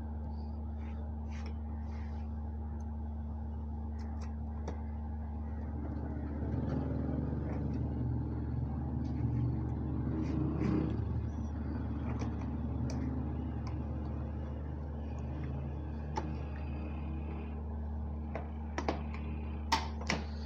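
Light clicks and taps of a push-handle lock being screwed onto an aluminium sliding-window sash, over a steady low hum. A low rumble swells a few seconds in and fades again, and a few sharper clicks come near the end.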